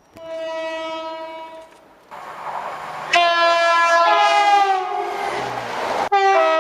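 Three train horn blasts: a steady single note about a second and a half long, then after a second of rushing noise a louder three-second blast of several tones that sags slightly in pitch partway through, and near the end a short two-tone blast stepping from high to low.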